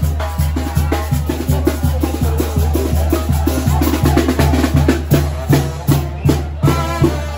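Loud music with a steady, driving bass beat and percussion.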